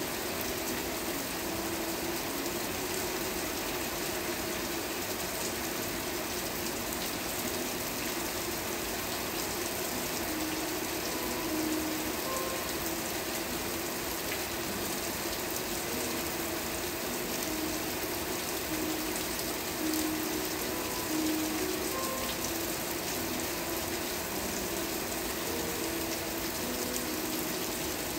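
Steady rain falling, an even hiss, with scattered short pitched drips or plinks over it.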